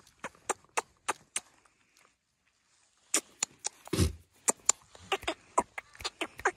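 A run of short, sharp clicks, about three a second, made by a person calling a puppy over, broken by a pause of about a second and a half. A low thump about four seconds in.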